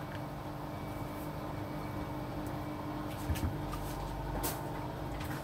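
Washing machine running with a steady hum and low rumble, with a couple of light knocks in the second half.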